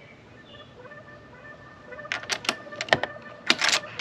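Sharp metal clicks from a ratchet on a chain of wobble extensions being worked down onto a front spark plug: a quick run of three, then a few single clicks in the second half.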